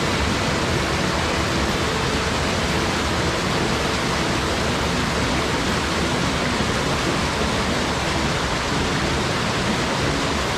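Mountain headwater stream rushing over rocks and small cascades: a steady, even rush of water that does not change.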